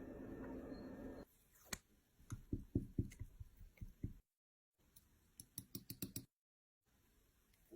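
A quick series of small, sharp clicks and taps in two short runs, each cut off abruptly into dead silence.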